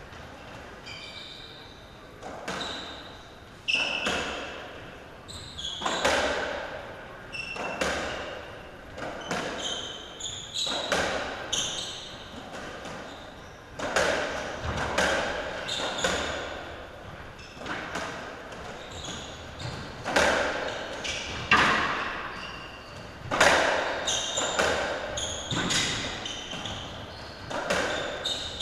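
Racketball rally on a squash court: the ball cracks off the rackets and the walls about once every one to two seconds, each hit echoing in the enclosed court.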